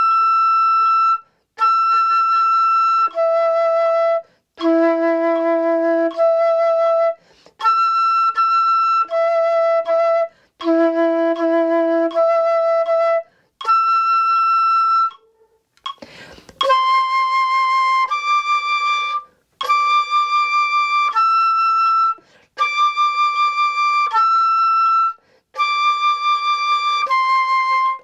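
Solo flute playing slow, sustained long notes with short breath gaps between them. The first exercise leaps between the high third-octave E and the same note one and two octaves lower. After a quick breath about sixteen seconds in, a second exercise moves stepwise among the high C, D and E.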